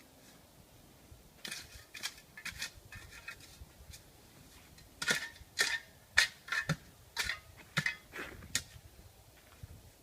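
Hand digging tools striking and scraping in soil and roots. The strikes are irregular: a few scattered ones at first, then a run of sharper hits about every half second from around five seconds in.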